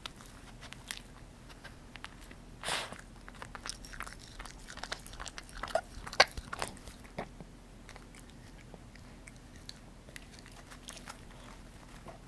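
Poodle sniffing and licking at its empty bowl for leftover apple: irregular wet clicks, snuffles and small knocks of the bowl, the sharpest about six seconds in, dying away near the end.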